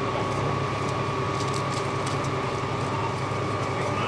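Machinery running steadily: a rapid low drone with a constant high whine over it.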